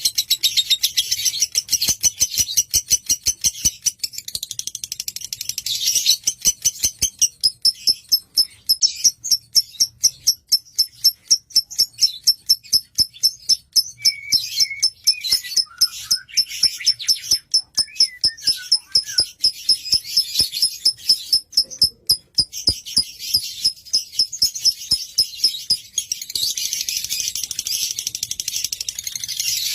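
Lovebird singing a long, high-pitched chattering song. A dense twitter at first turns into rapid, rhythmic repeated notes, about three a second, with a few lower gliding notes midway, before the twittering returns near the end.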